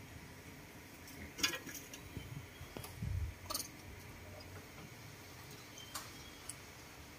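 Baby monkeys eating at a wooden table: faint, scattered clicks and knocks of food and a china plate being handled, with a low thump about three seconds in.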